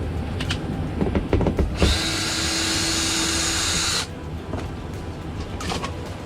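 Power drill/driver running steadily for about two seconds to back out a screw holding an access door, with knocks and clicks of the door and panel being handled before and after.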